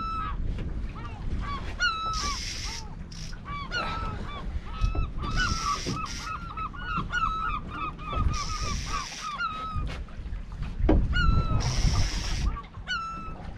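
Gulls calling over and over, short curved cries with a fast run of calls in the middle. Four bursts of hiss, each about a second long, come at intervals of roughly three seconds, over a low rumble.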